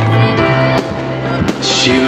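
Loud pop music with a steady bass line, cut through by sharp firework bangs, two of them in quick succession about a second apart.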